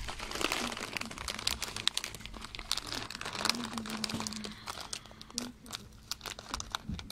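Clear plastic snack bags crinkling as they are handled, with irregular crackles; one bag holds thin-shelled roasted almonds in the shell.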